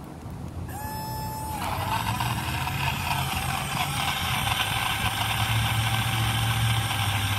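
Portable battery-powered cup blender: a short steady tone about a second in, then the motor starts and runs steadily with a whir, slowly getting louder as it blends sea moss with water.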